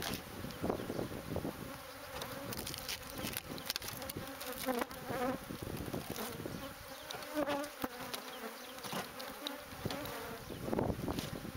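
Many honeybees buzzing close by, a wavering hum that shifts in pitch, with scattered clicks.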